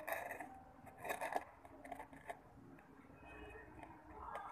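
A thin utensil stirring glue and water in a small steel bowl, scraping and clicking against the metal. It comes in two short bursts, one at the start and one about a second in, then goes quieter.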